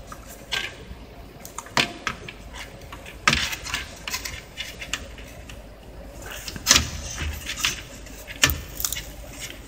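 Irregular clicks and knocks of a laptop motherboard being handled, tapping and rubbing against its plastic base casing and cables, loudest about a third of the way in and again past the middle.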